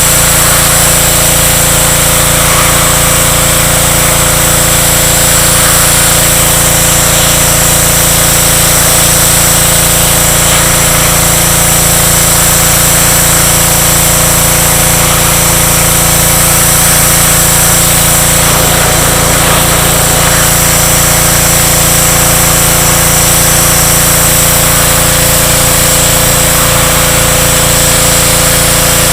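Pressure washer running steadily: a constant machine drone under a loud hiss from the water jet.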